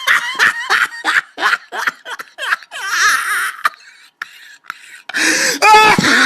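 Laughter sound effect: a quick run of laughing bursts that trails off into a wheeze, then a short gap and a loud voice crying out near the end.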